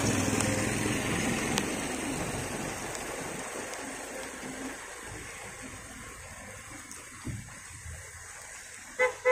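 Heavy rain falling on a street and wet pavement, a steady hiss that slowly grows quieter, with a vehicle's engine fading away over the first few seconds. Two short sharp sounds come near the end.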